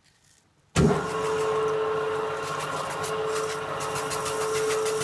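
Metal lathe switched on about a second in, then running steadily at high revs with a constant hum and whine, spinning a motorcycle crankshaft. This is the polishing stage, with emery tape held against the turning crankpin.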